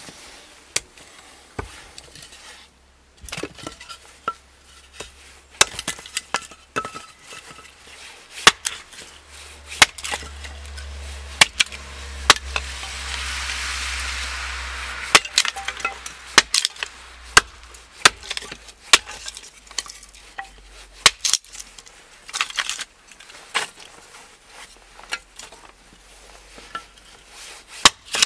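Hatchet splitting kindling on a wooden chopping block: a long run of sharp wooden knocks and cracks, irregularly spaced, often one or two a second, as the blade is driven into the sticks and splits them. A rushing noise with a low rumble swells up in the middle and fades away.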